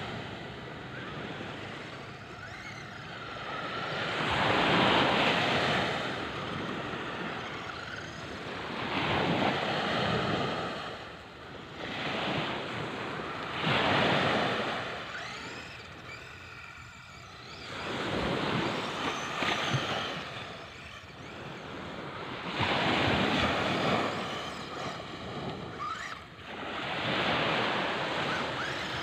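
Small waves breaking and washing up the sand, swelling and fading every four to five seconds.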